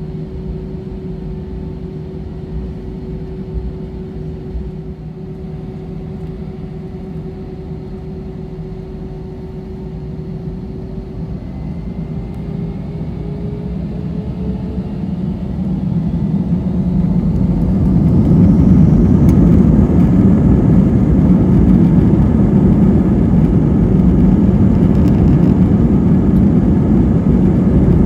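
Airbus A320 cabin with the jet engines running at a steady low hum and whine; about halfway through the whine rises in pitch and the engine noise swells over a couple of seconds to a much louder, steady level as the engines spool up to takeoff thrust.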